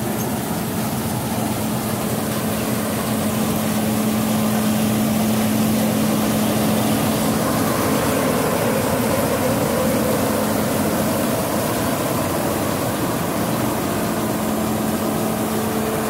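John Deere 9500 combine harvester's diesel engine and threshing machinery running steadily as it cuts wheat and moves past at close range, throwing out straw and chaff behind.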